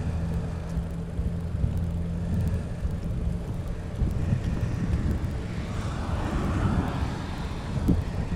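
Wind rumbling on the camera microphone and tyre noise while riding a Brompton folding bike along an asphalt path, with a steady low hum through the first couple of seconds.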